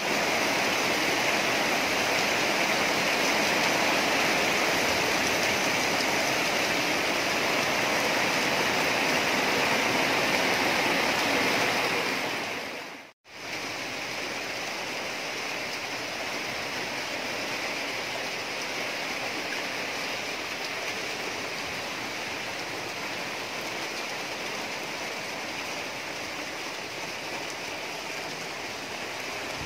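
Heavy rain falling steadily, a dense even hiss. About halfway through it fades to a moment of silence, then goes on a little quieter.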